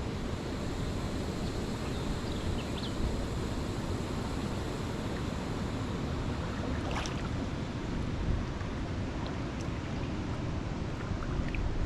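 Steady rushing noise of wind on the microphone and moving water, strongest in the low range. A few faint short high chirps come through, and there is one sharp click about seven seconds in.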